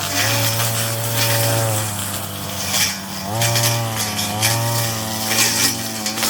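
Brush cutter engine running hard, its pitch dropping and rising again every second or two as the throttle is eased and opened. Repeated bursts of hiss come as it cuts through weeds.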